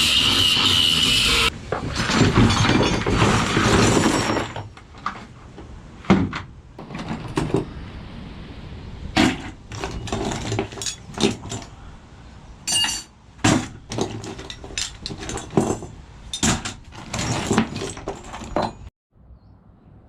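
Pieces of scrap metal clanking and clinking as they are handled and tossed down: a noisy clatter in the first few seconds, then a dozen or so separate sharp knocks.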